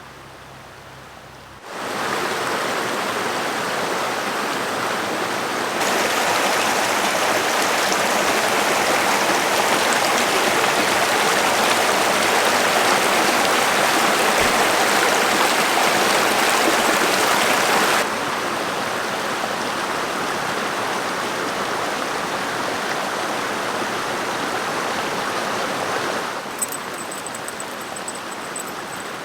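Rushing creek water, a steady hiss of flowing water that starts abruptly about two seconds in and jumps louder and softer in sudden steps a few times.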